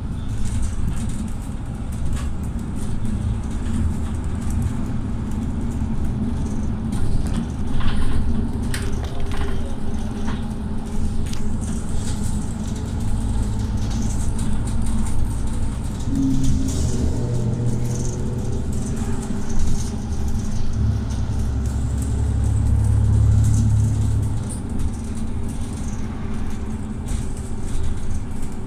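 A Mercedes-Benz Citaro city bus driving, heard from inside the passenger cabin: a steady low engine drone and road rumble with occasional knocks and rattles. The engine note changes about two-thirds of the way through and is loudest for a few seconds near the end.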